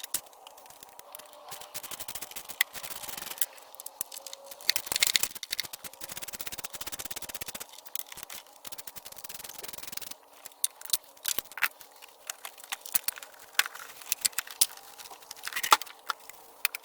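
Hands working on car parts: scattered sharp clicks with stretches of rubbing and scraping, over a faint steady hum.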